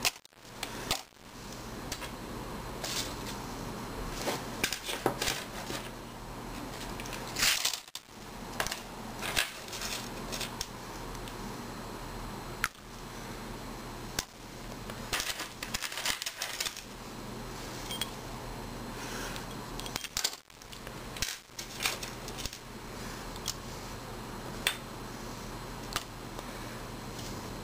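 Ultrasonic cleaner with small airsoft gun parts in its basket, running with a steady low hum and a hiss, broken by many irregular sharp clicks and ticks.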